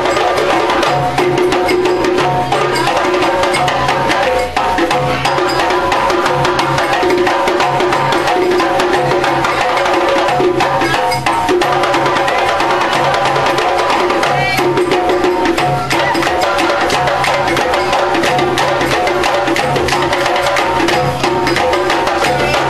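Live music driven by hand drums and other percussion, played in a steady, dense rhythm.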